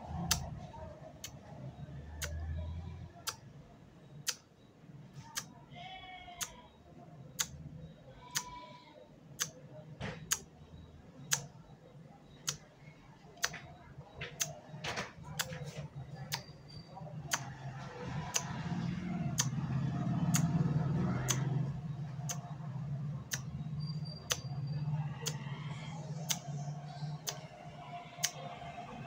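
Vocal mimicry of a clock ticking: sharp mouth clicks, about one a second, in step with the second hand of a handheld quartz clock movement that makes no sound of its own. A low steady hum runs underneath.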